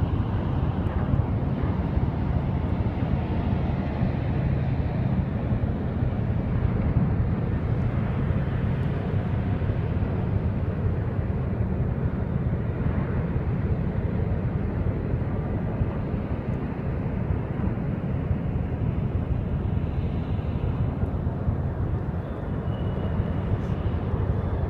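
Steady low drone of heavy machinery from docked container ships and the port's gantry cranes, with a constant low hum.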